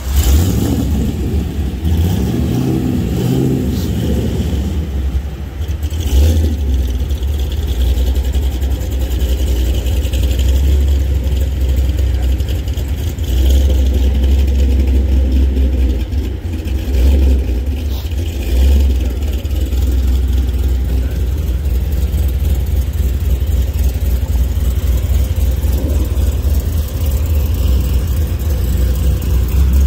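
A car engine revving in rising and falling sweeps over the first few seconds, then a steady loud low rumble.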